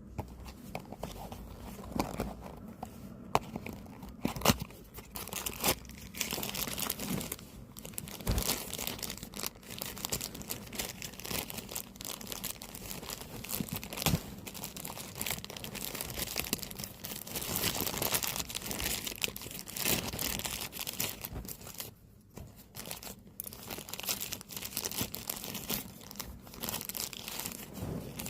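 Packaging being torn open and crinkled by hand: a continuous run of rustling and ripping with small sharp clicks, easing off briefly about 22 seconds in.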